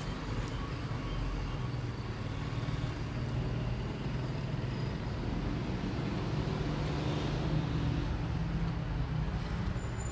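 Steady low background rumble with a low hum through it, with no distinct events standing out.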